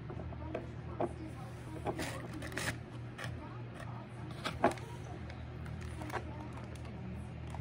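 Handling noises: a few light taps and knocks, the sharpest about four and a half seconds in, with some soft rustling, over a steady low hum.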